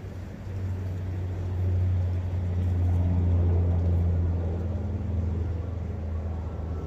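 Low engine drone of a passing vehicle, swelling over the first few seconds and then easing off, over the steady rush of a forest brook.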